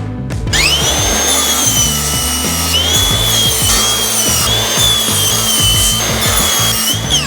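Electric power saw spinning up to speed with a rising whine, running with small dips in pitch, and winding down near the end. Background music plays underneath.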